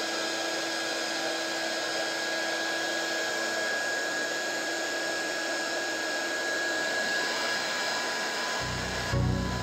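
Small 300 W mini hot air gun running, its fan blowing a steady whoosh with a thin steady whine. About a second before the end, electronic music with a heavy beat comes in.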